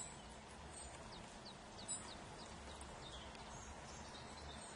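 Great spotted woodpecker pecking at tree bark: two sharp knocks, the louder about two seconds in. Around them are short, high, thin falling chirps of small birds.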